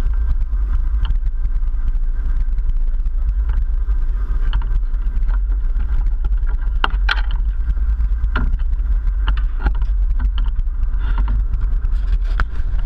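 Steady low rumble aboard a sport-fishing boat under way, from its engines and wind on the microphone, with a few short knocks and clicks scattered through.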